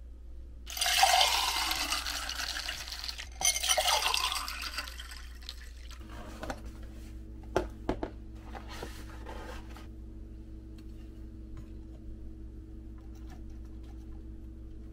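Water running in two bursts of a few seconds each. Then a steady low hum starts about six seconds in, with a few sharp clicks.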